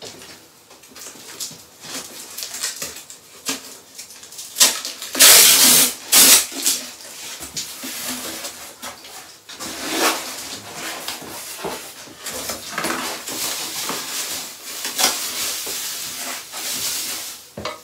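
A cardboard shipping box being opened: packing tape slit with a knife, the flaps pulled open, and a foil insulation liner and padding rustling and crinkling as they are handled. The noise is irregular scraping, tearing and crinkling with scattered clicks, loudest about five to six and a half seconds in.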